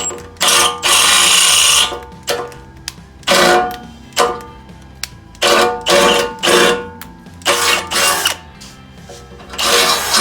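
Power drill drilling out a mounting hole in repeated bursts, the longest about a second in, followed by several shorter runs. Background music plays underneath.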